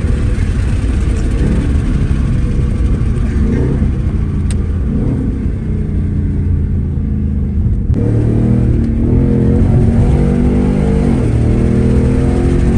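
Ford Mustang GT's 5.0-litre Coyote V8 accelerating, its exhaust note climbing in pitch from about eight seconds in, dropping briefly at a gear change near eleven seconds, then climbing again.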